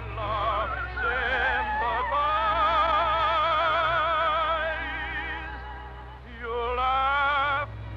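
Operetta-style singing with wide vibrato over an orchestra, held on long notes without clear words. The level dips about six seconds in, then a loud held note swells and breaks off sharply just before the end.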